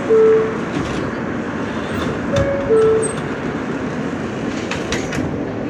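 R160 subway car noise with a two-note falling door chime sounding twice, about two and a half seconds apart, and a few sharp clicks later on.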